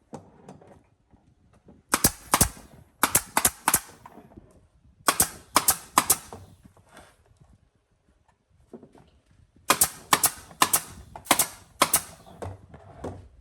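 Sharp, loud knocks or shots in quick clusters of two to five, each cluster about a second long, with quiet gaps between.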